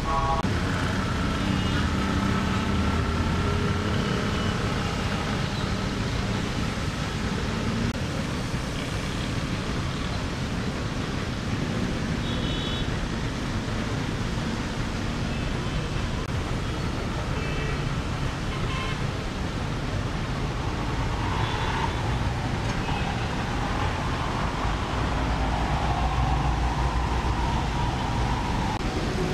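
Dense, slow city road traffic: a steady mix of car, rickshaw and motorbike engines with tyre noise on the wet road. A few short horn toots sound now and then.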